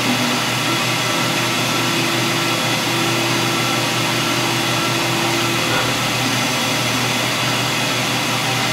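Metal lathe running with the spindle turning while the stepper-driven tool makes the final 0.1 mm finishing pass, facing the end of a metal shaft. A steady whine sits above the running noise from about two seconds in to nearly six seconds in.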